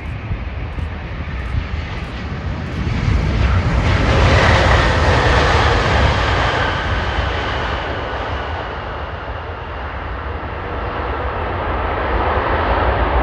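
Jet engine noise from a Boeing 787-9's GEnx-1B turbofans as the airliner rolls out after touchdown: a broad, steady rush with a faint held whine. It swells about four seconds in, eases, then builds again near the end.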